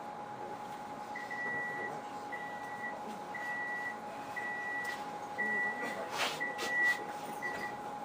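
Door-closing warning of a Lastochka electric train: seven evenly spaced high beeps, about one a second, over the steady hum of the train's onboard equipment, with a short hiss and clunk near the end as the doors shut.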